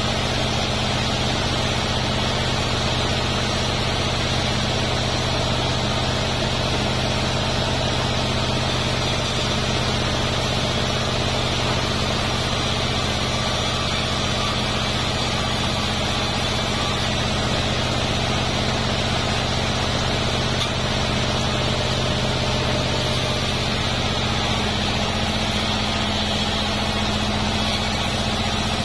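A vertical bandsaw mill running with a steady, unbroken low hum as a durian-wood timber is fed through and sawn lengthwise.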